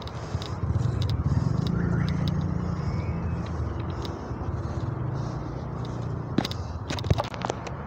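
A motor vehicle engine running nearby, a low rumble that grows louder about a second in and then slowly fades, with a few sharp clicks near the end.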